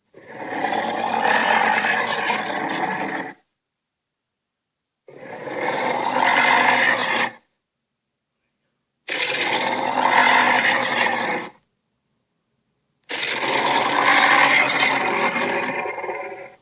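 Four separate dinosaur-style creature roars from a sound-effects set, each rough and lasting two to three seconds, with dead silence between them.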